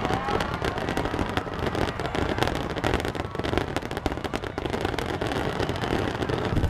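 Aerial fireworks going off in a dense barrage: many shells bursting together, with rapid crackling and popping from glittering crackle stars over a low rumble.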